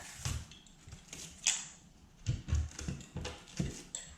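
A blade cutting and scraping into the soft edge of drywall: a series of irregular scrapes and small knocks as the loose, mushroomed edge is cut and worked loose, the sharpest scrape about a second and a half in.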